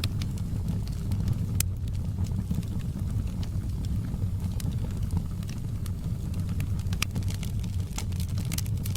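Wood fire crackling in a fireplace: scattered sharp pops and snaps over a steady low rumble of flame. The pops come thicker near the end.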